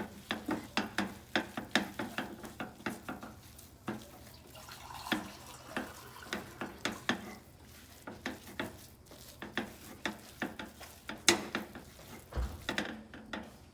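A cooking utensil stirring a thick croquette mixture of mashed potato and crab meat in a pan, with irregular clicks and scrapes against the pan a few times a second and one sharper knock near the end.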